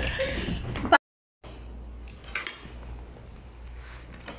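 Spoons and cutlery clinking faintly against plates and bowls during a meal, with a short dead-silent gap about a second in.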